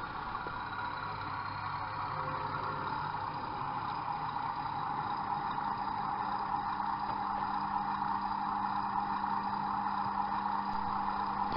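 Train Tech model-railway sound capsule in a wagon playing a recorded Class 31 diesel engine through its small speaker: a steady engine drone with a hum of held low tones, over the running noise of the model train, slowly growing louder.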